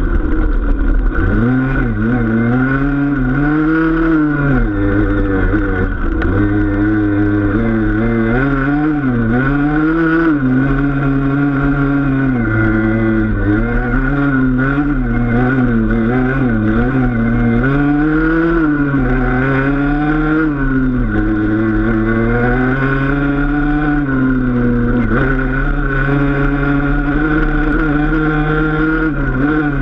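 Enduro dirt bike engine under way on a trail, its revs rising and falling every second or two.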